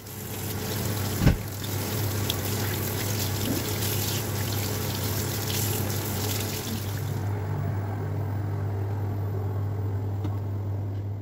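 Kitchen tap water running into a sink as eggplants are rinsed under it by hand: a steady splashing hiss over a low even hum. A single sharp knock about a second in; the hiss of the splash softens about seven seconds in.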